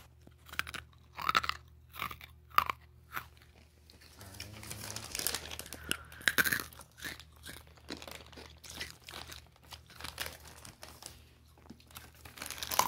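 Freeze-dried Skittles crunched and chewed right at the microphone: sharp, irregular crunches with a denser stretch of crackling chewing a few seconds in.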